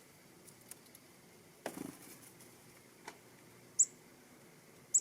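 Two short, high-pitched chirps from black-capped chickadees, the first near four seconds in and the second just before the end, with a soft rustle about two seconds in and a few faint clicks.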